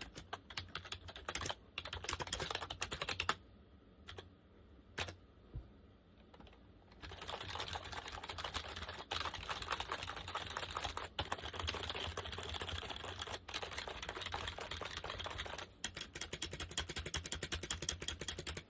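Typing on a Compaq KB-3923 rubber dome keyboard: quick runs of key clicks, a pause of about three seconds with a couple of single keystrokes, then fast, nearly continuous typing.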